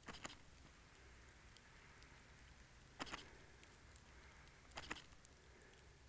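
Near silence, broken by three short crackling rustles: just after the start, about three seconds in, and around five seconds in.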